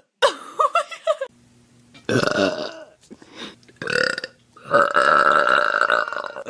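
A person belching loudly several times in a row, the last belch drawn out for nearly two seconds.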